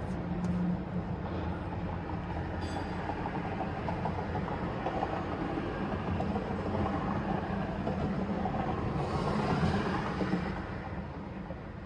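A 2013 Mercedes GL450 running with a steady low rumble and hum. It swells briefly about nine seconds in, then eases off.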